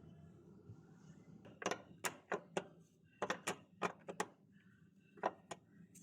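Sharp clicks or taps in short irregular runs of two to four, over a faint low hum.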